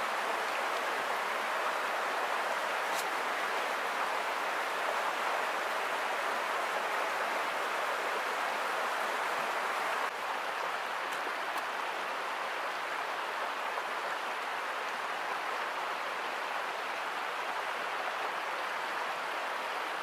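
Steady rush of a creek's water running over rocks, dropping slightly in level about halfway through.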